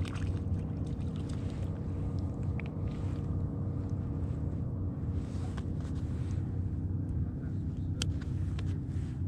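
Steady low rumble with small clicks from fishing line and a soft-plastic lure being handled as a new lure is tied on, and a sharp snip about eight seconds in as scissors cut the tag end of the line.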